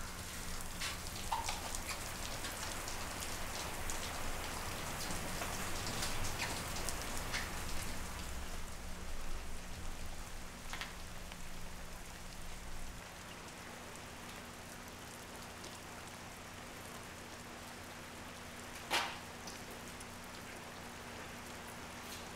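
Steady rain falling, under a low steady hum, with a few soft clicks and knocks. A sharper click comes about nineteen seconds in.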